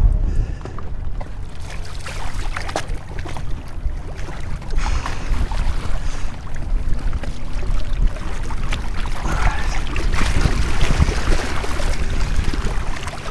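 Wind rumbling on the microphone, with water sloshing against a small boat's hull and occasional knocks; the wind gusts stronger about two-thirds of the way through.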